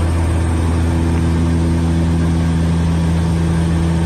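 Aircraft engines droning steadily, heard from inside the cabin: a constant low hum with a few steady tones.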